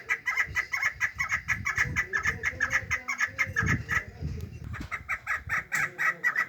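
Chukar partridges calling: a fast run of short, clipped notes, about six a second, breaking off briefly about four seconds in before resuming. A lower, muffled sound runs underneath through the middle.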